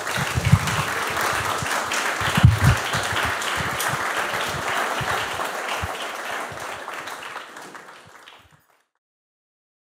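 Audience applauding after a lecture, a dense patter of many hands clapping that tails off and then cuts off abruptly about eight and a half seconds in.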